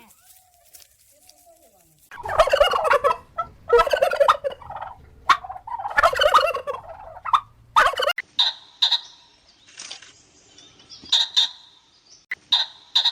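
Poultry calling: three long, harsh calls about two seconds apart, followed by a series of short, sharp, higher-pitched chirps.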